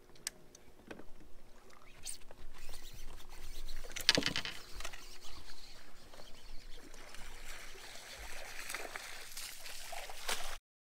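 Knocks and clatter on a bass boat's deck, with one sharp knock about four seconds in, then a stretch of splashing water at the boat's side while a hooked fish is netted.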